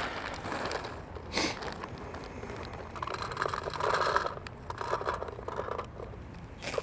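Scraping and rustling handling noise, with a sharp click about a second and a half in, as paintballs and the gun's hopper are handled before loading.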